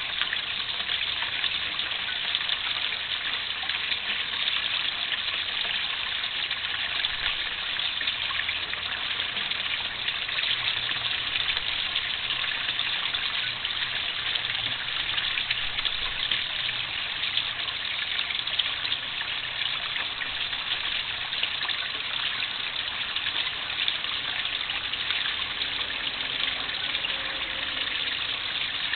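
Steady splashing and rushing of moving water in a garden koi pond, a continuous even hiss with no breaks.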